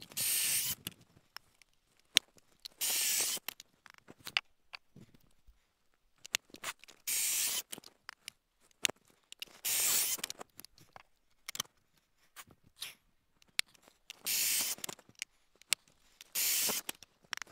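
Cordless drill boring pocket holes into pine boards through a Kreg pocket-hole jig, about six short bursts of under a second each. Light clicks and knocks of the boards and jig being handled fall between the bursts.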